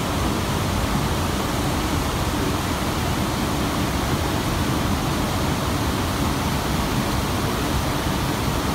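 Water rushing steadily over a concrete weir, an even unbroken noise.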